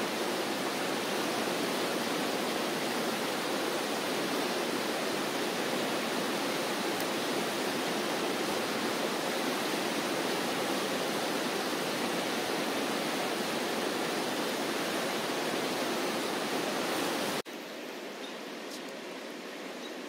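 Fast-flowing river, high and quick with snowmelt, rushing steadily. Near the end it drops suddenly to a quieter, softer rush.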